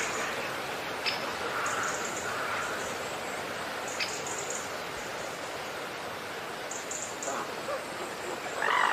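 Steady hiss of outdoor background noise with faint bird chirps, and two light clicks, about one second and four seconds in, from a tiny spoon against a small steel plate.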